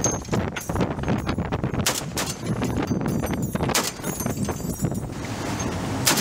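Several sharp machine-gun shots at irregular intervals from a boat-mounted weapon station, over a continuous low rumble.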